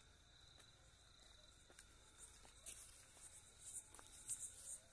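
Faint crickets: a thin steady high-pitched trill at first, then quick high chirps that grow louder from about halfway through, with a few faint ticks.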